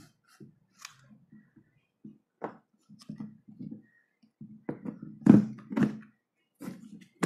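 Plastic clicking and scraping as the screw cap of a plastic RO water-filter housing is twisted and seated, in short irregular bursts with the sharpest knocks about five to six seconds in.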